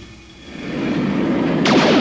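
Cartoon sound effect of a blast: a low rumble swells up from about half a second in, and a sharp crack comes near the end.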